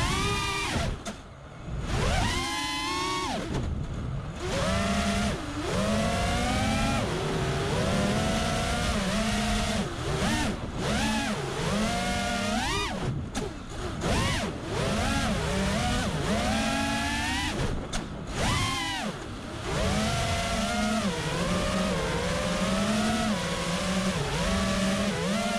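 A motor revving up and down over and over. Each rise in pitch climbs for about a second and then drops back sharply, over a steadier low hum.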